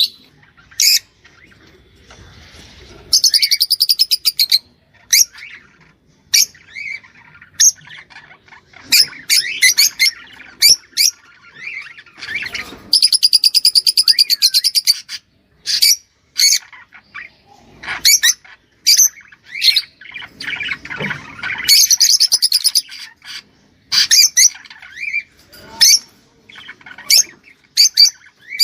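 Small cage birds calling and singing: sharp, high chirps and squawks, broken three times by long rapid buzzing trills.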